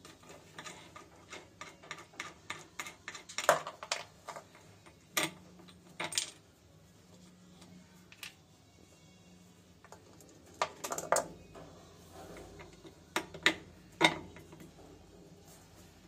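Small metal clicks, clinks and knocks of hand tools and metal parts being handled, coming irregularly in scattered clusters, with a few sharper knocks among them.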